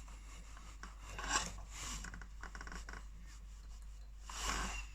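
Small screwdriver working screws out of a boiling-water tap: faint metal scraping and rubbing, with a short run of small ticks about two seconds in.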